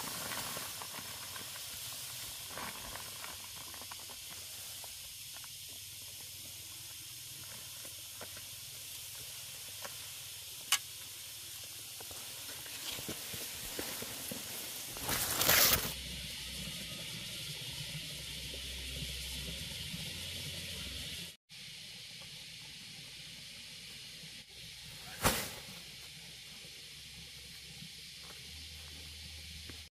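Steady high hiss of outdoor background noise, broken by two short loud noises, one about halfway and one near the end.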